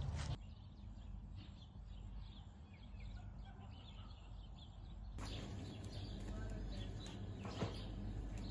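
Small birds chirping over a low steady background. The background drops abruptly about half a second in and comes back louder about five seconds in, with one sharp click near the end.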